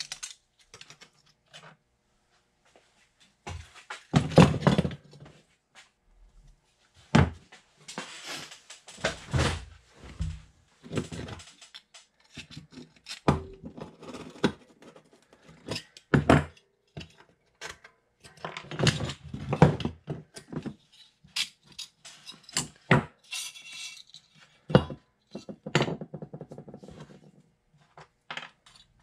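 Rusty steel camper-shell spring lift arms and their hardware being handled and taken apart on a workbench: irregular clanks, clinks and scrapes as metal parts knock together and are set down.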